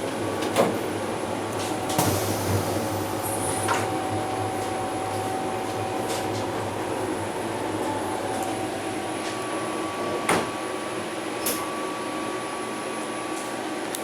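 Cabin running noise of a JR West 683 series electric limited express under way: a steady rumble and hiss, a thin whine in the background, and a few short knocks.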